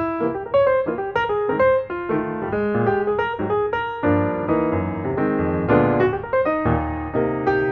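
Background piano music: a flowing run of notes, several a second, over low bass notes.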